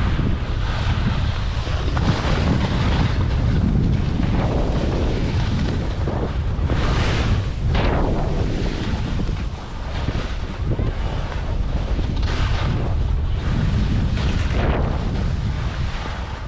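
Wind buffeting the microphone in a steady low rumble, with louder rushing swells every few seconds.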